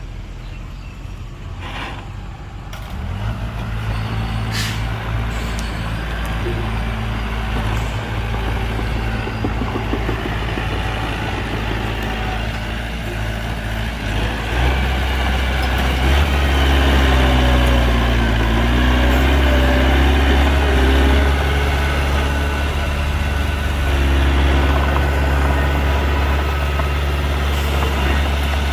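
Heavy diesel engines of a dump truck and bulldozer running under load. The engine sound grows louder about three seconds in and again about halfway through, with its pitch dipping and recovering a little later.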